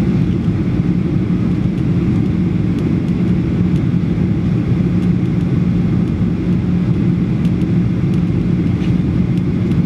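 Steady cabin noise inside a Boeing 737-800 in flight: its CFM56 jet engines and the airflow over the fuselage make a deep, even drone with a constant low hum.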